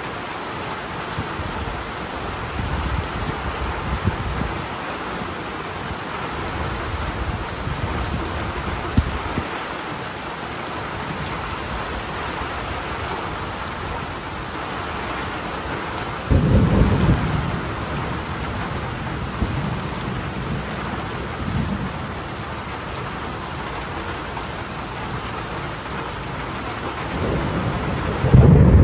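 Heavy rain falling steadily in a thunderstorm, with thunder rumbling several times. A loud thunderclap comes about halfway through, and another loud rumble builds near the end.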